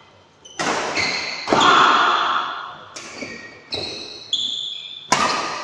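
Badminton rally: rackets striking the shuttlecock about six times in quick exchange, each hit a sharp crack that rings on in a large hall, the loudest about a second and a half in.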